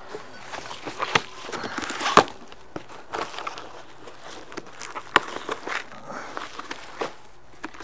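Cardboard shipping box being cut and pulled open by hand: irregular rustling, scraping and tearing of cardboard, with sharp knocks, the loudest about two seconds in and another about five seconds in.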